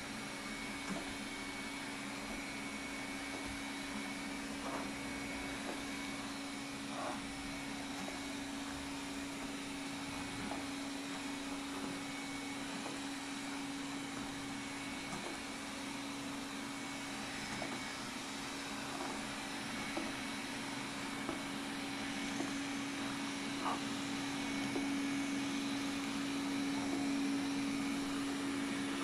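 Xiaomi Mijia 1C robot vacuum running steadily while cleaning: a constant hum with a steady tone from its motor and brushes, a few faint clicks, and a slight rise in loudness near the end.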